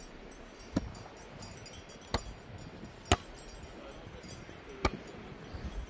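A volleyball being struck by hand four times, each hit a sharp slap, as it is passed back and forth. The third hit is the loudest.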